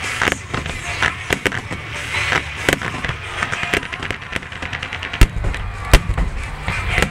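Fireworks display: a rapid string of bangs and crackles from shells bursting in quick succession, with two loudest booms about five and six seconds in.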